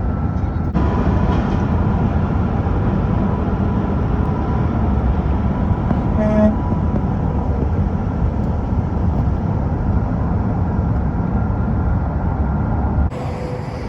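Heavy highway traffic from passing trucks: a loud steady rumble, with one short horn toot about six seconds in.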